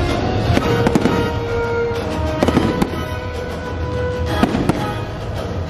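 Fireworks bursting, a string of sharp bangs and crackles, over a show's music soundtrack.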